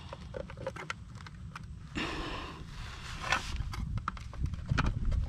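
Scattered plastic clicks and knocks from a weatherproof outdoor outlet's in-use cover being handled and an extension cord plug being pushed into the outlet, with a brief scraping sound about two seconds in, over a low rumble.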